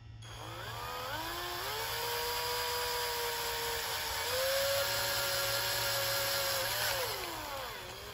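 Electric drill with a 3/16-inch bit drilling out the screw holes in an aluminum MAF sensor housing: the motor spins up, runs steadily, steps up in pitch about halfway through, then winds down and stops near the end.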